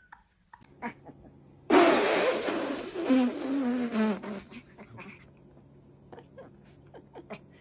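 A pet gives a raspy, drawn-out call that falls in pitch, lasting about three seconds, followed by a few faint clicks.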